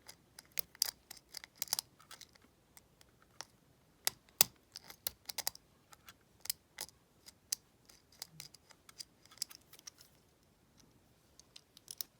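A hook pick and tension wrench working the pin-tumbler cylinder of a deadbolt: irregular small metallic clicks and taps, the loudest about four and a half seconds in.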